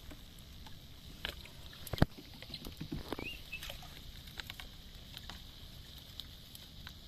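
Small fire of dry twigs and straw crackling under skewered fish, with irregular sharp pops, the loudest about two seconds in. A brief high chirp comes about three seconds in.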